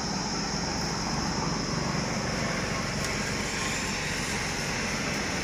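Steady outdoor rushing noise of highway traffic, a car going by, mixed with wind buffeting the microphone; it stays even throughout with no sharp sounds.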